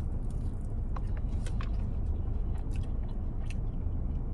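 A person chewing french fries with the mouth close to the microphone: small crunches and wet mouth clicks, scattered irregularly. Underneath is a steady low hum, which is the car's air conditioning left running.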